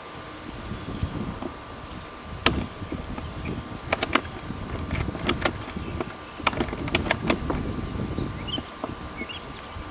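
Ratchet strap on a beehive being worked by hand: a scatter of sharp metal clicks and rattles, the loudest about two and a half seconds in, over low handling and rustling noise.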